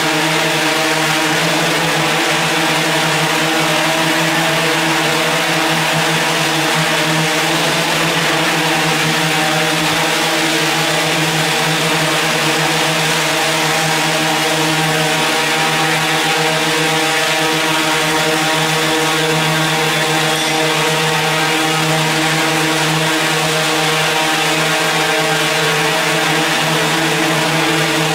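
Multirotor drone hovering, its spinning propellers giving a steady, even hum of several held pitches.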